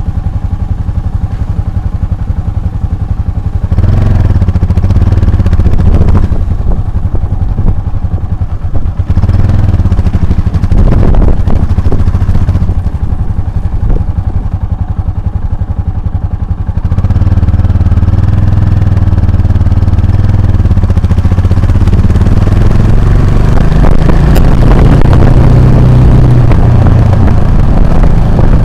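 Motorcycle engine running while riding, the throttle opening and closing. It gets louder about four seconds in and again a little past halfway, then climbs in pitch as the bike accelerates near the end.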